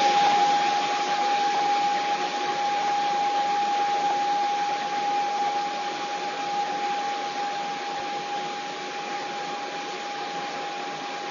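Steady hiss with one held tone through it, growing slowly quieter: the noise of a video-call audio link that has frozen and dropped the speaker's voice.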